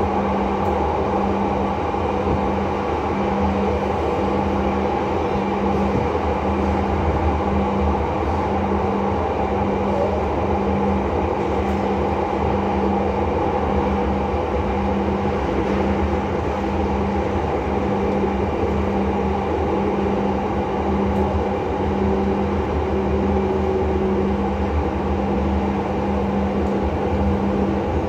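Palembang LRT light-rail car running at speed, heard from inside the car: a steady rumble of wheels and traction gear, with a low hum that pulses on and off about once a second.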